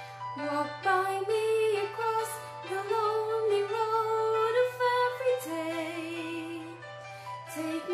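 A woman singing a slow melody in long, held notes with vibrato. A steady low hum runs underneath and cuts off just before the end.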